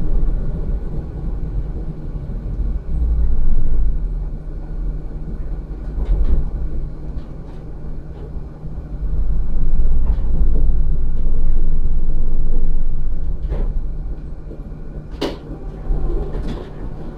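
Rotax E6 (EU8N) tram running, heard from inside the passenger saloon: a steady low rumble of wheels on rails with a constant low hum, swelling louder twice as it moves. A few sharp clicks and knocks sound in the second half.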